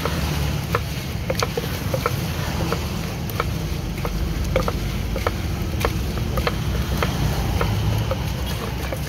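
Wooden pestle pounding and stirring chopped fruit and sauce in a tall clay mortar: a regular run of short knocks, about two or three a second, over a steady low rumble.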